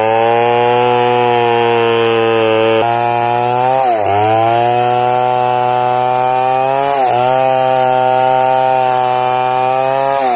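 Stihl 070, a large single-cylinder two-stroke chainsaw, running at high revs while ripping a log lengthwise into boards. Its pitch dips twice under the load of the cut and picks back up.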